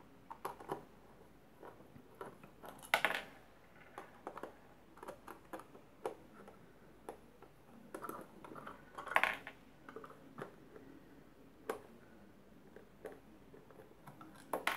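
Small screwdriver working the screws out of a plastic repeller housing's back cover: scattered light clicks and scrapes, with a few sharper taps about 3 and 9 seconds in as the unit and screws are handled.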